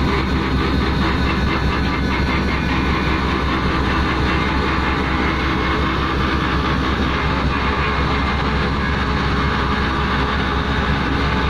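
Heavy machinery running steadily, with a fast even pulse through the first half that eases after about seven seconds.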